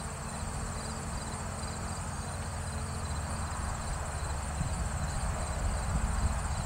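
John Deere 5403 tractor's three-cylinder diesel engine running steadily at a distance, a low hum growing slowly louder as it approaches while raking hay. Insects keep up a steady high trill throughout.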